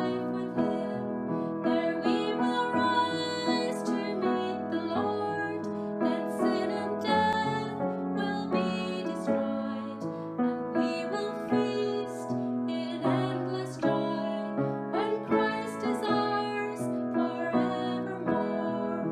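A woman singing a hymn verse and accompanying herself on an upright piano.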